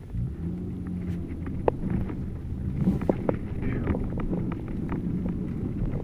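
Car cabin noise while driving slowly on a snow-covered street: a steady low engine and road hum, with scattered short clicks and knocks.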